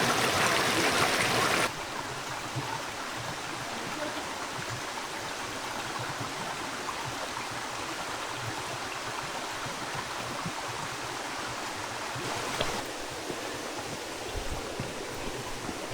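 Flowing water rushing steadily. It is louder for the first couple of seconds, then drops suddenly to a lower, even rush.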